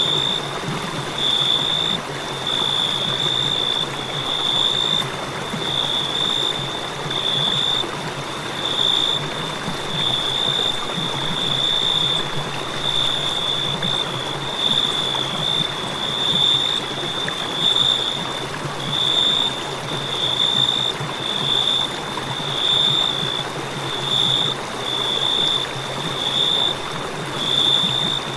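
Crickets chirping in a high, even trill that swells and breaks about once every second or so, over a steady hiss.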